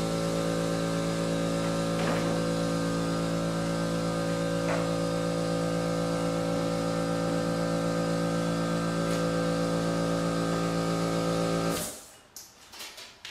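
An electric motor-driven machine running with a steady hum made of many even tones, which shuts off abruptly about twelve seconds in; a few faint handling clicks follow.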